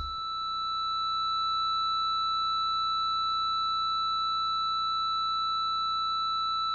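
A steady electronic tone on one high pitch with faint overtones, growing louder over the first second or so and then holding level.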